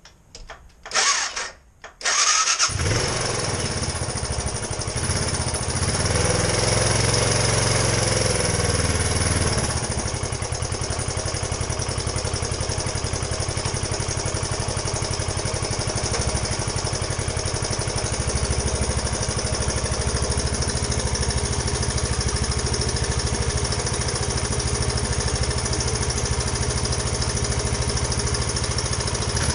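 A 2001 Suzuki Savage's 652cc single-cylinder four-stroke engine is cranked by its electric starter in two short bursts, catches about two and a half seconds in, and keeps running. It is starting on its own battery without a jump starter. The engine speed wavers for a few seconds after it catches, then settles to a steady idle.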